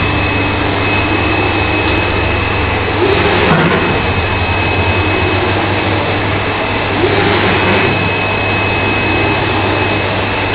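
Flatbed inkjet printer running: a steady, loud machine whir with a low hum underneath and a thin, steady high whine.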